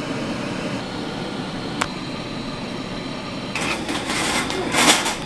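Steady hum with a single sharp click about two seconds in. From about three and a half seconds in come bursts of rustling and scraping from handling food and kitchen things while a pizza is made.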